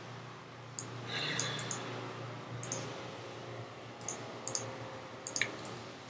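Scattered sharp computer mouse clicks, about a dozen, some in quick pairs, while files are selected and windows switched, with a short swish about a second in and a low steady hum underneath.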